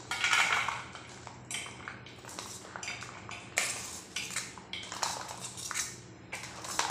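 Steel spoon scraping and clinking against stainless steel plates while spooning a chaat of fried sago and chopped vegetables from one plate onto another, in a string of irregular scrapes.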